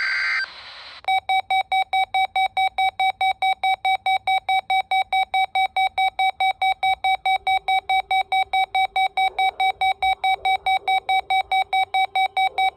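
The tail of a NOAA Weather Radio SAME data burst, then a weather radio receiver's electronic alert alarm beeping in a fast, even string of about four beeps a second. It is set off by the alert code of a tornado drill / required monthly test.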